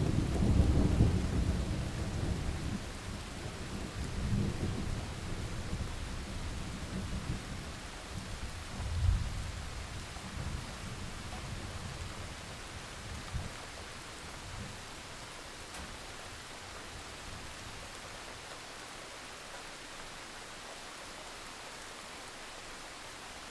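Thunderstorm: thunder breaks suddenly at the start and rumbles for a few seconds over steady rain. Further rumbles come about four and nine seconds in, then the thunder dies away and the rain carries on alone.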